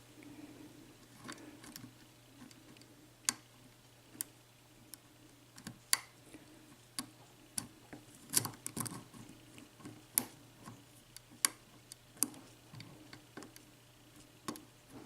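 Pick and tension wrench working the pins of a Corbin Russwin interchangeable-core lock: scattered small metallic clicks and ticks at irregular intervals as pins are lifted and set.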